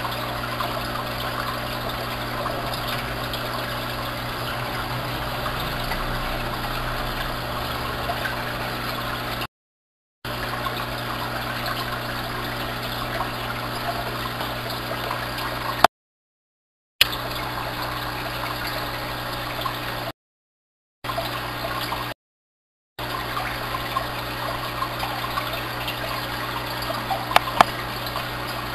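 Aquarium air-pump diffusers and filters bubbling and splashing steadily, over a constant low electric hum from the pumps. The sound drops out completely four times for about a second, and a few sharp clicks come near the end.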